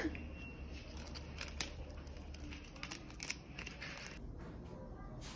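A scatter of light, sharp clicks and rustles from a metal fork and a plastic sauce sachet being handled over a ceramic bowl of noodles, most of them in the first four seconds.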